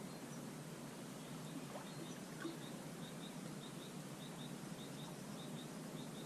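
A small bird repeating a high two-note call, roughly one pair every half second or so, starting about a second and a half in, over a steady low background rush.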